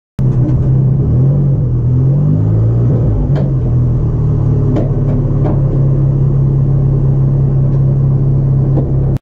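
Audi RS 3 LMS TCR race car's turbocharged 2.0-litre four-cylinder idling in neutral, heard from inside the cockpit. The idle wavers briefly about two seconds in, then holds steady, with a few sharp clicks along the way.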